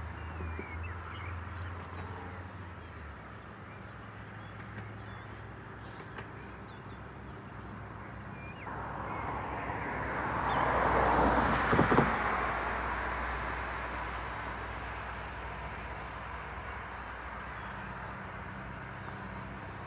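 A car driving past on the road: its tyre and engine noise swells from about nine seconds in, is loudest a little past the middle, then fades away.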